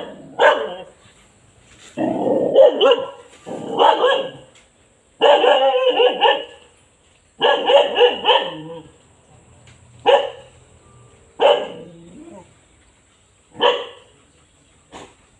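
A dog barking in repeated bouts, some single barks and some quick runs of several barks, with short pauses between.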